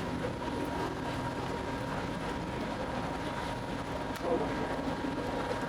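Steady machine hum and running noise from bakery equipment, with a few light knocks.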